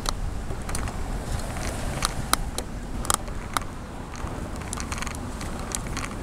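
Riding a bicycle along a concrete sidewalk: a steady low rumble of wind and tyre noise, with a few sharp clicks between about two and three and a half seconds in.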